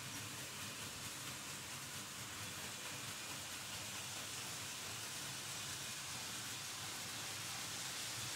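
Märklin H0 model trains running on pressed-steel M-track: a steady, even rushing rattle of metal wheels on the rails.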